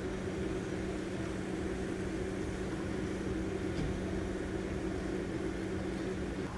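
A steady, low mechanical hum from a running motor, fading out right near the end.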